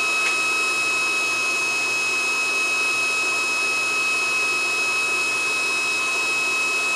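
Handheld induction heater running as it heats a steel nut: a steady high-pitched whine over the even rush of its cooling fan.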